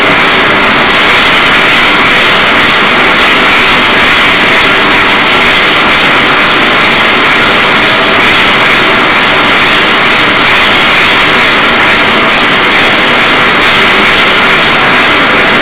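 Torch burner flame roaring steadily as it heats the boiler pot of a homemade Hero's steam engine (aeolipile): a loud, unbroken rushing noise.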